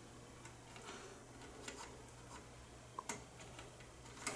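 Faint, irregular clicks of buttons being pressed on a Sage EAS encoder/decoder's front panel to step through its alert log, over a low steady hum. One click about three seconds in is a little louder.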